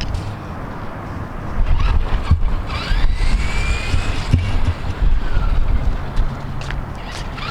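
Electric RC car's motor whining as the car speeds up and then slows, the pitch rising then falling over a few seconds. Wind buffets the microphone.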